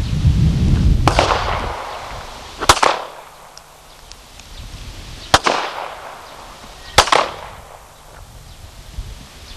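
Four pistol shots, unevenly spaced about a second and a half apart, each with a short echo off the range. A low rumble runs under the first shot.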